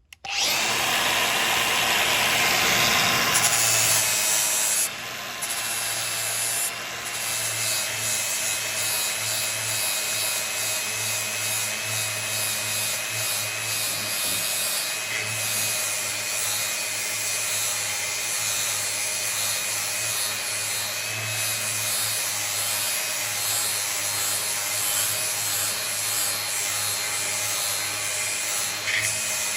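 Grinder switched on just at the start and grinding the edge of a steel lawn mower blade: a steady, harsh grinding with a high motor whine, louder for the first few seconds, then even.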